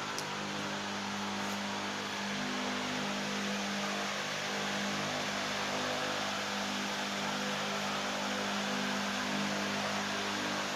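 An engine running steadily at one even speed: a low hum with a constant hiss over it, not revving or changing.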